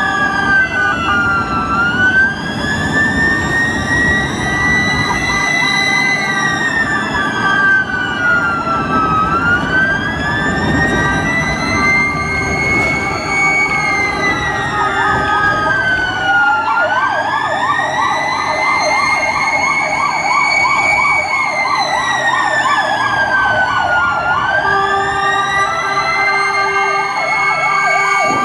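Emergency-vehicle sirens. A slow wail rises and falls about every seven to eight seconds. About sixteen seconds in, a second siren joins, warbling rapidly at a lower pitch. Engine and road noise run underneath in the first half.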